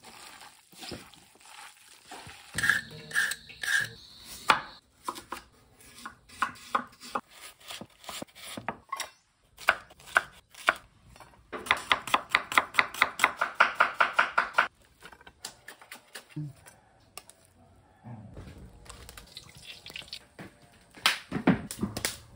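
Kitchen knife chopping a red onion on a wooden cutting board: a fast, even run of knife strokes, about six or seven a second for some three seconds, amid scattered knocks and clatter of food preparation.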